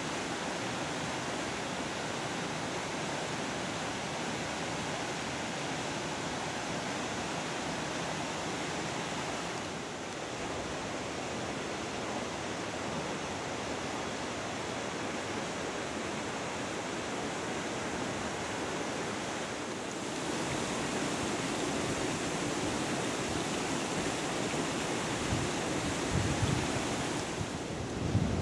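Steady rushing of a fast river swollen with floodwater after heavy rain, churning over rapids. Its character shifts slightly twice, and there are a few low bumps near the end.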